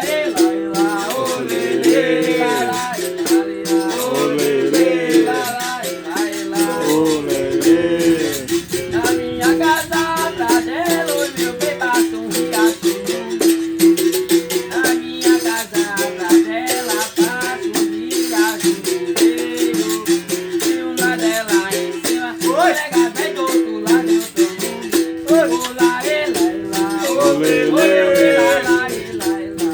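Berimbau played in a steady rhythm: quick stick strikes on the steel string over one held ringing note, with pitches above it shifting as it plays.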